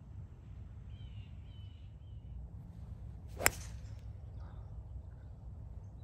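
A golf tee shot: one sharp crack of a Titleist 816h2 hybrid striking the ball, about three and a half seconds in. A bird chirps briefly a second or so before it.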